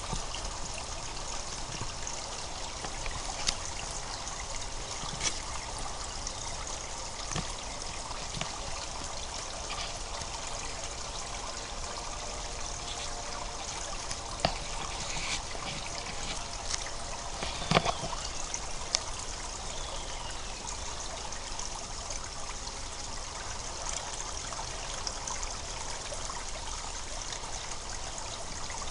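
Spring water gurgling and trickling steadily, with a few sharp little splashes standing out, the loudest a little past halfway.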